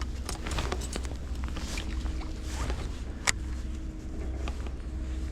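Fishing tackle being handled while working a bite: scattered small clicks and rustles, with one sharp click about three seconds in, over a steady low rumble and a faint steady hum.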